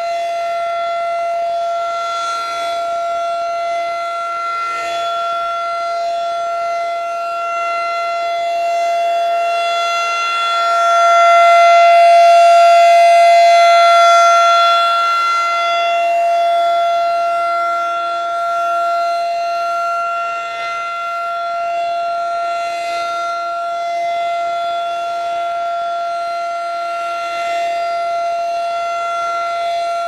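Rotating outdoor tornado warning siren sounding a steady tone for its routine monthly test. The pitch holds level throughout, while the loudness swells in the middle as the rotating horn swings toward the listener and then eases off.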